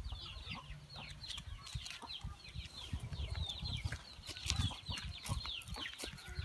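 Chickens and chicks calling in a rapid, continuous stream of short, high, falling peeps, with low uneven rumbling underneath and a few sharp crackles.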